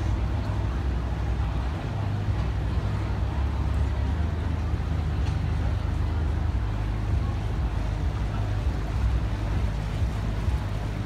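Small motorboat underway, its engine running with a steady low rumble, with wind and water rushing past.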